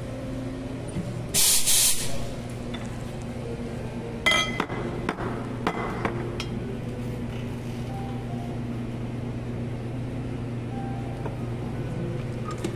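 Espresso machine steam wand purged in one short, loud hiss about a second and a half in, just after being wiped down. Sharp metallic clinks follow about four and six seconds in, over a steady low hum.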